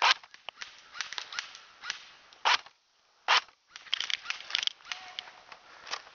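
Airsoft guns firing: a sharp single shot at the start, another about two and a half seconds in and a third under a second later, with many lighter clicks and crackles between them.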